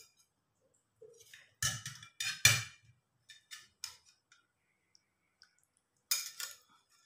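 A steel spoon and ceramic bowls and plates clinking and knocking as a bowl of soup is handled. The loudest knocks come about two seconds in, lighter clicks follow, and there is another short clatter near the end.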